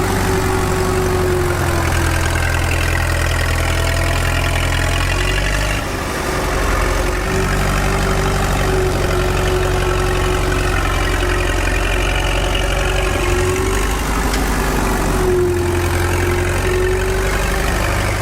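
Homemade mini tractor's engine running steadily, with a brief dip about six seconds in.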